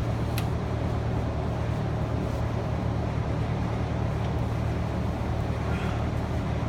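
Steady low mechanical hum, like an engine or motor running, unchanging throughout, with a faint click about half a second in.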